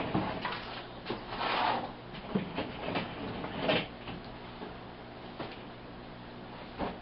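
Drawers being opened and rummaged through: a series of short, irregular knocks and rattles, over a steady low hum.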